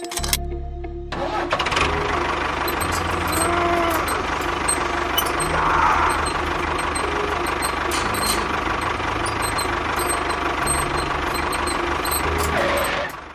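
An engine starting about a second in and running with an uneven low beat, cutting off suddenly near the end.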